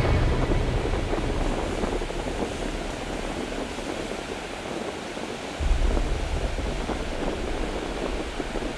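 Ocean surf breaking and washing up a sandy beach, a steady hiss of waves. Just past halfway a low rumble of wind on the microphone comes in.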